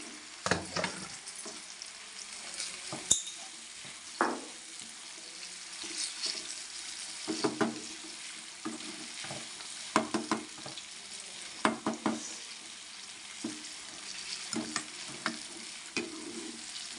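A wooden spatula stirring and scraping an egg and vegetable filling around a frying pan, over a steady sizzle of frying, with irregular scrapes and knocks against the pan.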